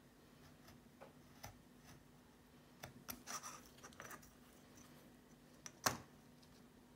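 Faint scratches and light clicks of a craft knife cutting card along a metal ruler, and of the ruler being shifted on a cutting mat, with a short cluster about halfway through and one sharper click near the end.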